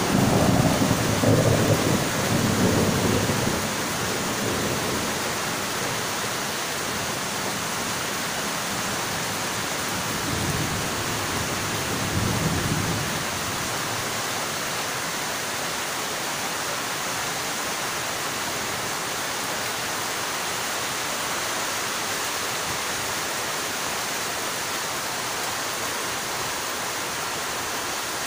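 Heavy rain falling in a steady hiss, with rolling thunder rumbling through the first few seconds and again about ten to thirteen seconds in.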